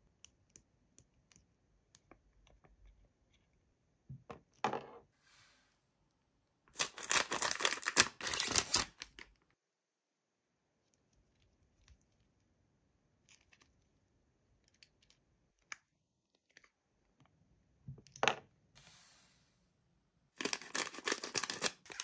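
Toy packaging being opened by hand: scattered small clicks and taps, and two loud tearing bursts of about two seconds each, one a third of the way in and one near the end.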